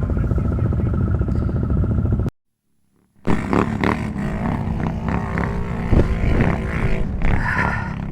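ATV engine running steadily while it is warmed up. The sound drops out completely for about a second, then the engine comes back revving unevenly.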